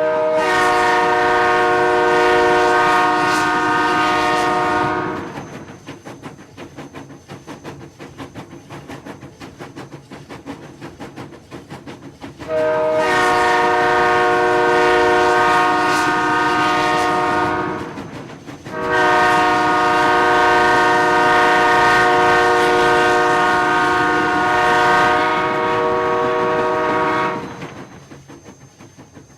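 Train horn sounding three long blasts, the last one longest, each a chord of several notes held steady. Between the blasts the train is heard running, with a quick, regular clickety-clack of wheels over the rails.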